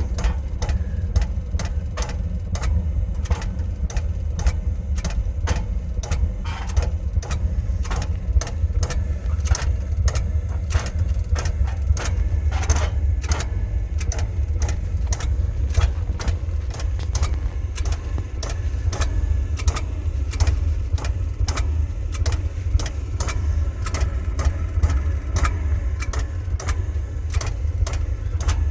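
Oil burner running with a steady low rumble, with a sharp clicking repeating evenly about two to three times a second throughout.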